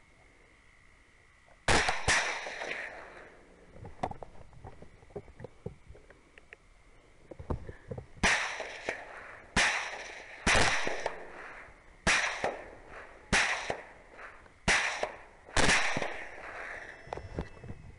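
Rifle shots fired at running feral hogs. There is a close pair of shots about two seconds in, then a string of seven shots, one every second or so, in the second half. Each crack has a short echoing tail.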